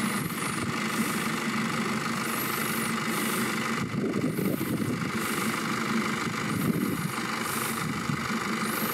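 Off-road 4x4 vehicle's engine running steadily at low revs.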